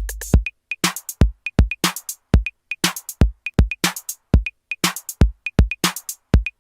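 Background electronic music: a drum-machine beat of deep kicks and sharp snare or clap hits with short high blips between them. The low bass cuts out about half a second in, leaving just the drums.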